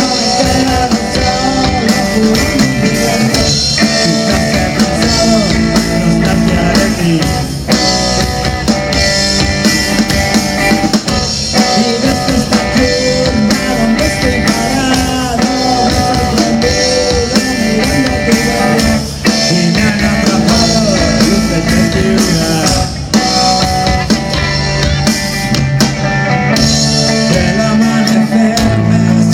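Rock song with drum kit, electric guitar and singing.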